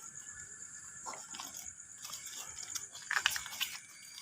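Night insects trilling steadily at a high pitch, with scattered crunches and rustles, loudest about three seconds in.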